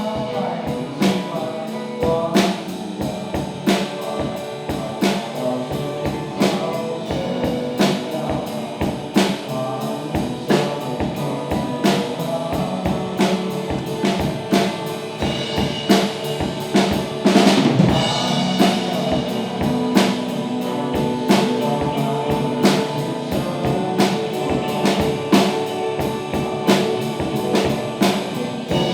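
Live rock band playing, the drum kit keeping a steady beat under bass and other instruments, with a louder cymbal-like crash about two-thirds of the way through.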